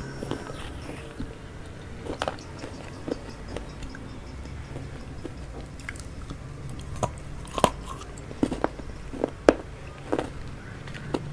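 Mouth sounds of eating vegetable chowmein noodles: chewing with irregular short wet clicks and smacks, a few of them louder in the second half.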